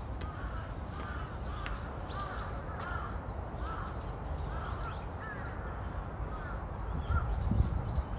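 Crows cawing repeatedly, a string of short arched calls, over a low rumble that gets louder near the end.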